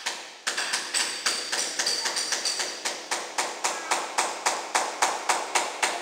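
Hammer rapidly striking a steel chisel to chip out floor tiles, about three to four sharp blows a second, some with a brief high metallic ring.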